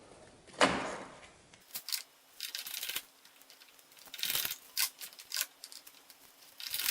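Scattered small clicks, taps and rustles of hands and tools handling a wall switch as it is fitted into its electrical box; each sound is short, with quiet between.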